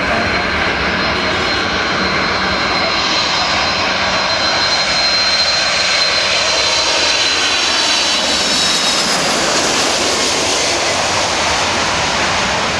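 Four-engined Boeing 747 jet airliner on final approach, its engines running with a loud steady roar. A high turbine whine slowly falls in pitch, and the roar spreads higher toward the end as the jet passes.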